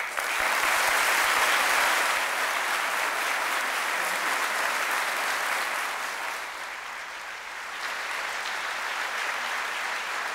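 A large audience applauding. It starts all at once at full strength, thins out somewhat about two-thirds of the way through, then swells again near the end.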